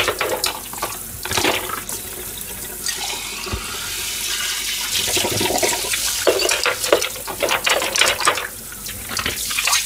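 Kitchen tap running into a stainless steel sink while dishes are rinsed under it, with short clinks and knocks of glasses, bowls and plastic containers being handled and stacked, busiest in the second half.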